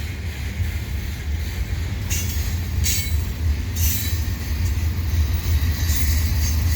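Freight cars of a slow mixed freight train rolling past with a steady low rumble, and a few brief high-pitched wheel squeals.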